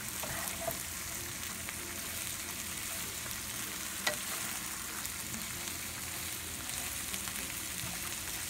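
Broccoli frying in butter and oil in a frying pan: a steady sizzle, with a wooden spatula stirring, and one sharp click about four seconds in.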